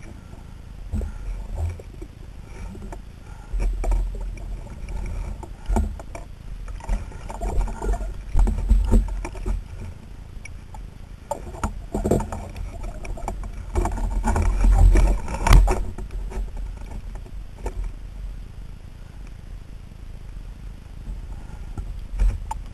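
Muffled underwater sound through a camera's waterproof housing as a freediver swims: water rushing against the housing with low rumbles and scattered knocks, swelling louder twice, about a third of the way in and again past halfway.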